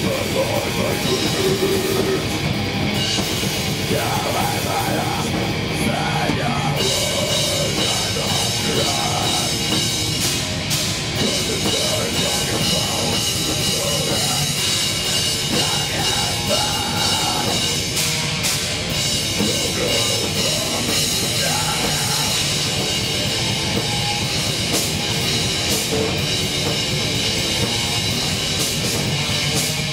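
Live rock band playing a heavy, loud song: electric guitar, bass guitar and drum kit with cymbals, a dense and steady band sound.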